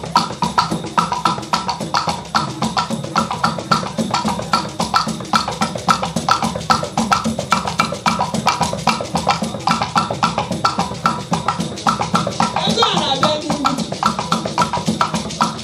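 Drum-led percussion music for dancing: drums under a fast, even pattern of sharp wood-block-like strikes, about four a second. A brief high sliding sound falls in pitch near the end.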